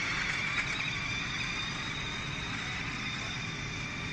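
Small electric motor of a remote-control toy car running with a steady high whine.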